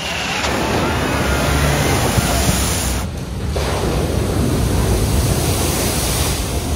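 Vehicles driving through a flooded ford, their wheels churning and throwing up a steady rush of splashing water, with wind buffeting the microphone. The sound breaks off briefly about three seconds in and starts again.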